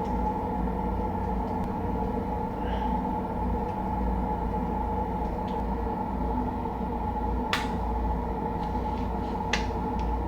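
A steady low mechanical hum and rumble with a constant mid-pitched tone over it, and two sharp clicks a couple of seconds apart near the end.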